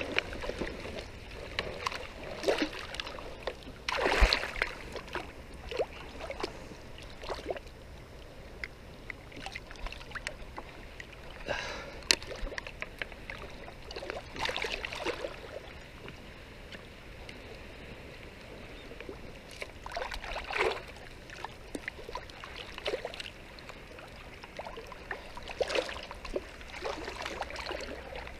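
Shallow seawater splashing and sloshing as a set net with fish in it is hauled and handled by someone wading, in irregular bursts over a low steady wash, with a louder splash about four seconds in and another near the two-thirds mark.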